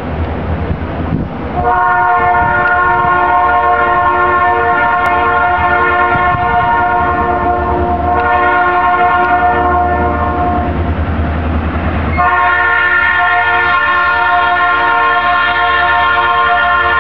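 Diesel locomotive horn sounding several tones at once, blowing for a road crossing as the train approaches. One long blast starts about two seconds in and lasts around nine seconds; a second long blast begins about a second and a half after it stops. Under the horn is a low, steady rumble.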